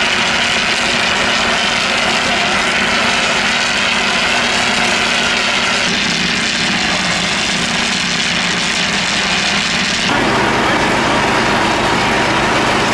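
Heavy vehicle engines running steadily, with a constant hum, as at a fire scene with fire trucks parked and working. The sound changes abruptly about six and ten seconds in.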